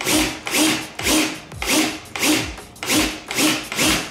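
Cordless drill boring a hole into a wall with a long bit. Its sound surges and drops in regular pulses, about twice a second.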